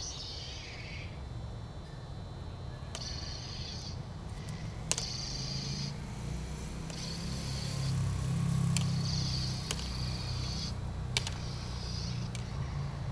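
Sharp clacks, about five, as a bamboo stick strikes a plastic toy lightsaber blade during sparring, with short bursts of high hiss between them. A low rumble runs underneath and swells about two thirds of the way through.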